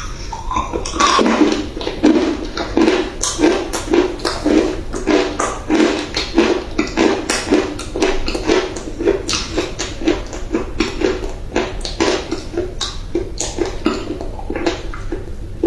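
Close-up chewing of dry clay: a steady run of crunches, about two bites a second, each with crisp crackling.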